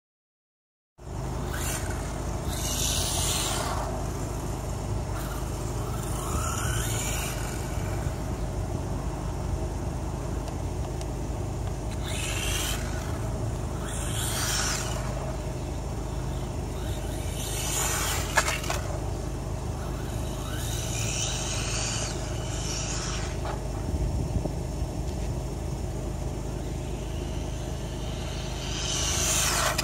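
WLtoys A959 RC buggy with a 2838 brushless motor on a 2S LiPo making repeated high-speed passes: its high motor whine and tyre noise swell and fade again about seven times, some passes gliding in pitch. A steady low rumble runs underneath.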